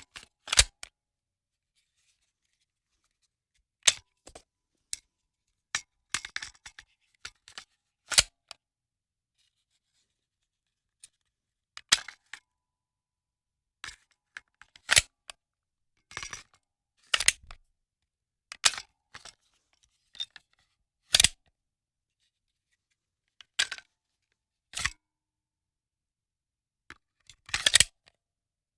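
A series of sharp metallic clicks and clacks from a handgun's mechanism being worked, singly and in quick clusters with dead silence between them.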